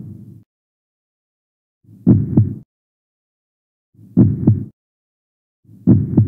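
Slow double thump like a heartbeat, two quick low strokes repeating about every two seconds with silence in between, three times: a heartbeat sound effect on the soundtrack.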